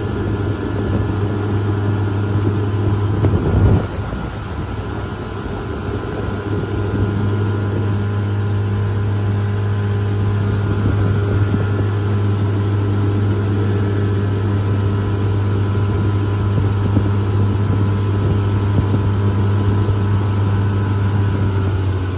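Gheenoe's outboard motor running steadily at speed, a constant hum with a steady drone. There is a brief knock about three and a half seconds in, after which it runs a little quieter.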